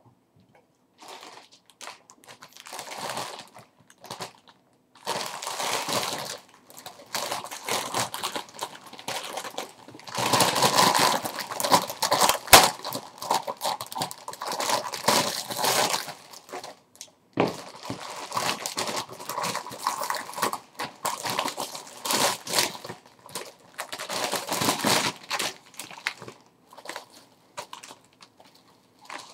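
Clear plastic shirt packaging crinkling and rustling as it is handled and pulled off a folded dress shirt. It comes in irregular stretches with short pauses and a few sharp clicks.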